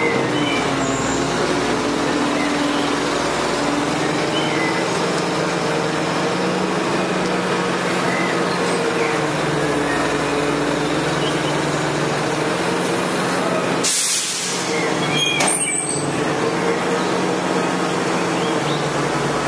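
Garbage truck's engine running steadily, with a short loud hiss about fourteen seconds in and a second, briefer hiss a second and a half later.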